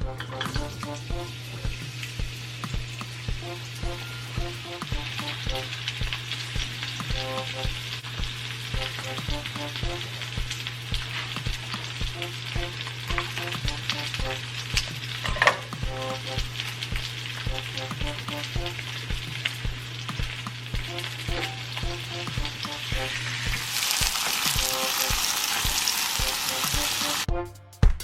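Food frying in olive oil in a pan, with a steady sizzle that grows louder a few seconds before the end and then cuts off.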